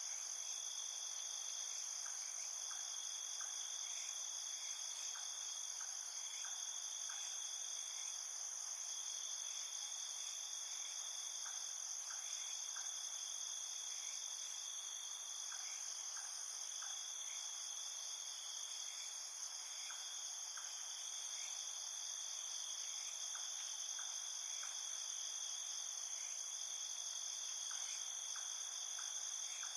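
Night chorus of crickets and other insects: steady, high-pitched overlapping trilling with no pause, and short faint chirps scattered through it.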